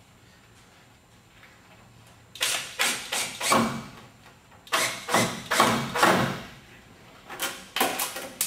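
Cordless drill/driver fixing the bottom of a timber door jamb to the wall stud: three bursts of rapid knocking, the first about two seconds in, the next about five seconds in and the last near the end.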